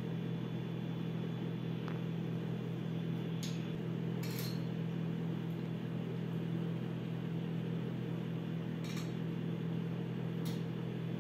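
A steady low hum, with about five faint, short clinks spread through it: a metal spoon tapping a glass dessert plate.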